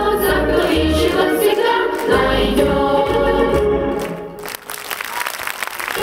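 Children's choir singing in unison over an instrumental accompaniment with a bass beat. The song ends about four seconds in, and audience applause follows.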